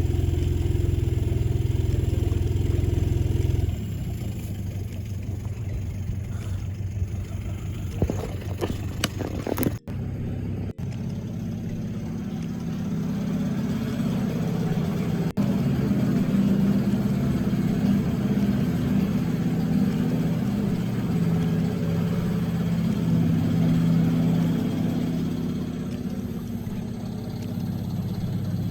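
An engine running at a steady speed, which changes in pitch and drops in level about four seconds in. Two brief dropouts come near ten seconds, and then it runs steadily again.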